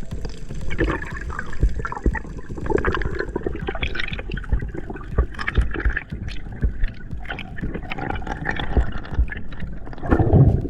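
Water gurgling and sloshing, with many irregular small clicks and knocks and a louder gurgle near the end.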